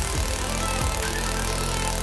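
Background music with a beat and a held bass line.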